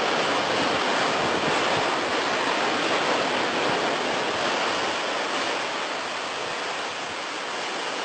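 Sea surf washing on a sandy beach: a steady, even rush of noise that eases a little near the end.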